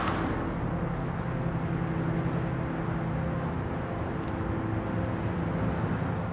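A minivan drives past close by, followed by steady street traffic noise.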